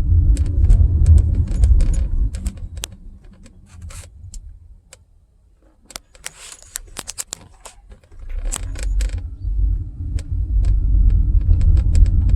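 Inside the cabin of a 2014 Honda Accord on a road test: low engine and road rumble, running with no misfire showing, that dies away for several seconds in the middle and builds back up about two-thirds through. Light rattling clicks sound throughout.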